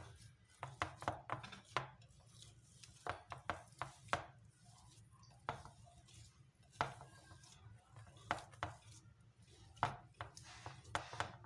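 Hand mixing a shredded chicken, mashed potato and grated cheese filling on a glazed ceramic plate: irregular sharp taps and clicks, some in quick clusters, as fingers knock against the plate.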